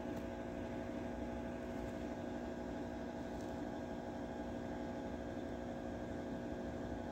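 Steady mechanical hum, a few even tones over a low, constant noise.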